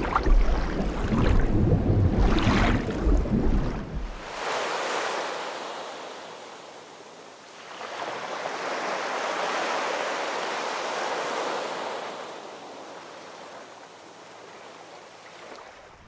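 Deep, loud rumbling water noise for about the first four seconds, then ocean surf: waves wash in and swell twice and die away toward the end.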